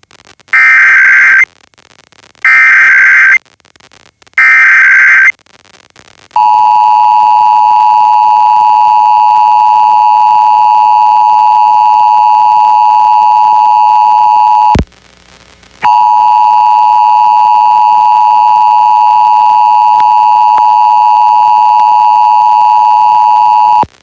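Emergency Alert System tones received over FM radio: three bursts of about a second each of screechy SAME digital header data, then the two-tone EAS attention signal, a steady dual-tone hum, which drops out for about a second partway through and resumes. This marks the start of a statewide Required Monthly Test.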